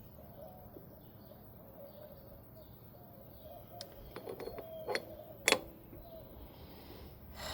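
Metal parts and tools clinking during hand work on an engine's belt pulley: a few light clicks, then two sharper clinks about five seconds in, the second the loudest.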